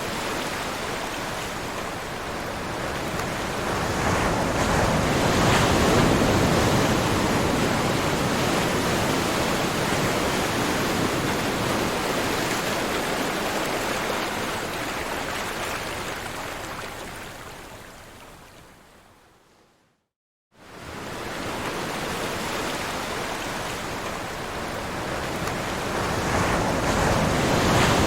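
Ocean surf: a steady rush of breaking waves that swells about five seconds in, fades gradually away to a moment of silence about twenty seconds in, then rises again.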